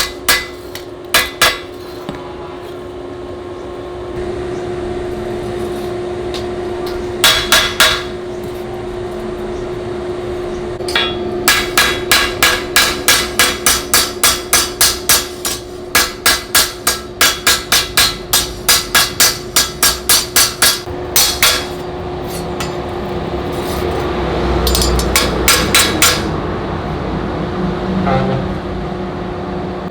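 Hand hammer striking metal on an anvil in runs of quick, evenly spaced blows, about three a second, with short pauses between the runs. A steady hum runs underneath.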